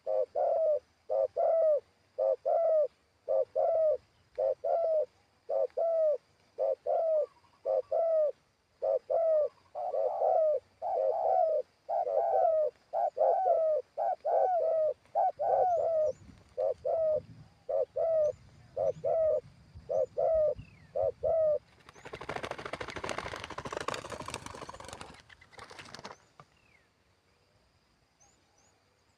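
Spotted dove cooing in a long run of short, evenly spaced coos, about one and a half a second, for some twenty seconds. Then the cooing stops and a loud burst of rustling noise lasts about four seconds.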